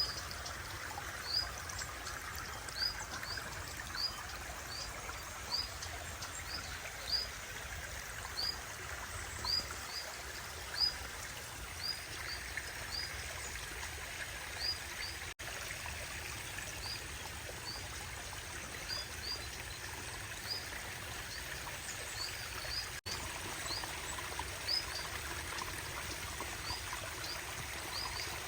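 Running water of a rock-lined pondless stream and waterfall, a steady flow, with a small bird repeating a short, high, rising chirp about once a second.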